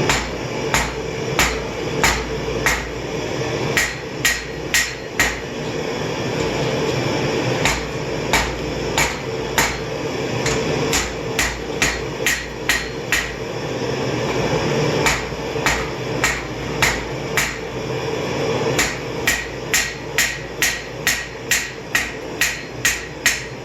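Hand hammer striking hot steel on an anvil, forging the tip of a knife made from an old rasp: a long series of sharp blows in runs of one to two a second, each with a brief metallic ring, broken by short pauses.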